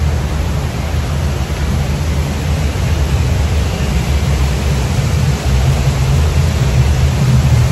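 Loud, steady rushing noise with a deep rumble underneath, recorded from a boat moving along the course of a water ride.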